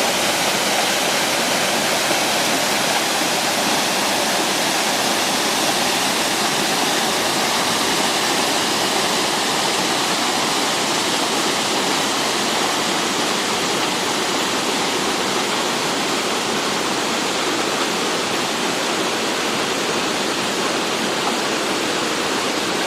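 Waterfall: a steady, even rush of falling water that holds its level throughout.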